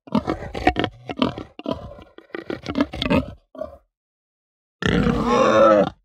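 Domestic pig grunting in a quick run of short, choppy grunts for a little over three seconds, then after a short pause one drawn-out pitched call lasting about a second near the end.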